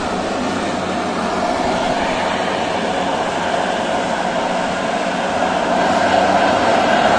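Twin turboprop engines of a small high-wing plane running with propellers turning, a steady drone and hiss that grows a little louder near the end.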